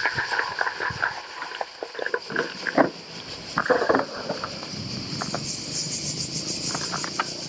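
Cicadas buzzing steadily in the summer trees, pulsing more strongly toward the end, over the crunch, clicks and knocks of a gravel bike's tyres and frame on a gravel path.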